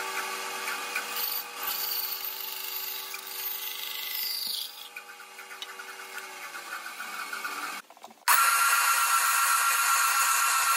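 A bandsaw running and cutting through a wooden block, with a steady motor hum under the cutting noise, which eases off about five seconds in. About eight seconds in it gives way to a louder oscillating spindle sander running steadily as the scoop is sanded against its drum.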